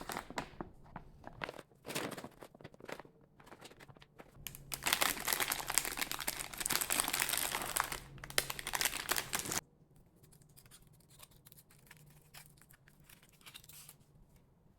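Crinkly packaging being handled and torn open: sharp scattered crinkles, then about five seconds of dense, loud crinkling and tearing that stops suddenly, followed by fainter rustling crinkles.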